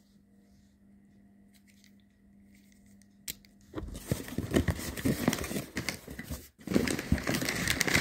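Near silence for the first few seconds, then from about four seconds in a cardboard shipping box being opened: flaps pulled apart and paper packing rustling and crinkling, with many small crackles and a brief pause near the end.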